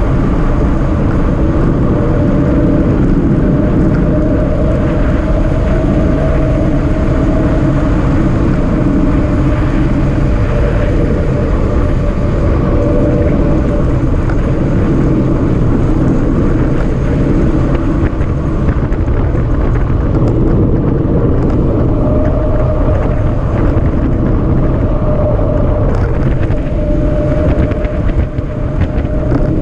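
Steady, loud wind rushing over the microphone of a bike-mounted camera on a fast bicycle descent, with a faint steady hum underneath.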